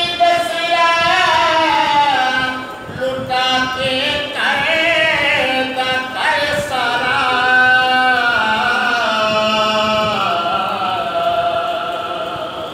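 A man singing a Punjabi naat unaccompanied into a microphone, holding long wavering notes. His voice tails off near the end.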